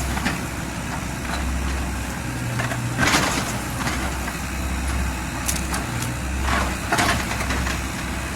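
Kubota U50 mini excavator's diesel engine running, its drone swelling and easing as the machine works, with several knocks and scrapes at the dig, the loudest about three seconds in and more near the end.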